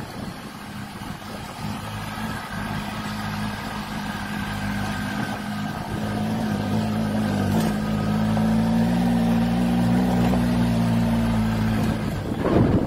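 Motorcycle engine running at low, steady revs, growing gradually louder and rising a little in pitch about halfway through. The engine note cuts off suddenly near the end, followed by a brief rush of noise.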